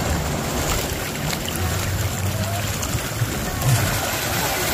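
Shallow sea water lapping and washing around the legs of a wader, with a steady low rumble of wind on the microphone.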